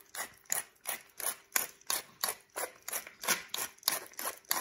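Allspice being dispensed from a spice container over the pan: a regular run of short, sharp clicks, about three to four a second.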